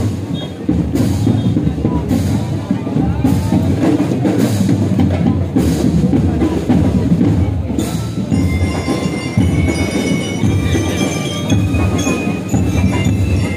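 Parade marching music: drums beating a steady cadence about once a second. Bright bell-like notes join in about eight seconds in.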